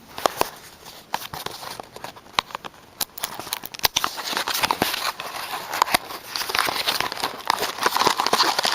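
Plastic packaging crinkling and clicking as a boxed toy figure is unwrapped: scattered sharp clicks at first, with the crinkling growing denser in the last few seconds.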